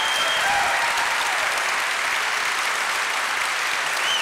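Audience applauding: many people clapping steadily, with no break in the clapping.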